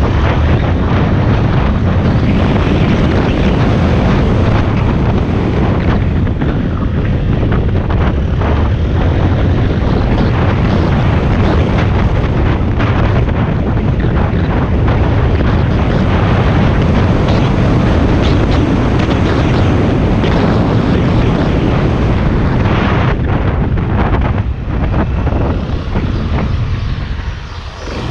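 Honda XRE190's single-cylinder engine running under way, with heavy wind noise on the microphone. The sound eases off in the last few seconds as the bike slows down.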